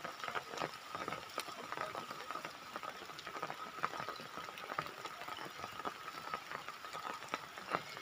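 Rain falling, a dense irregular patter of drops, over a steady high-pitched tone.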